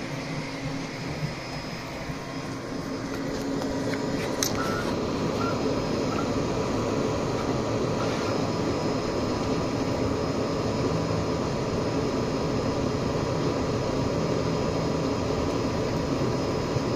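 Filament feeder motor of a multi-spool 3D-printer filament system running steadily as it retracts filament back through the feed tube, a mechanical whir that grows a little louder about three seconds in.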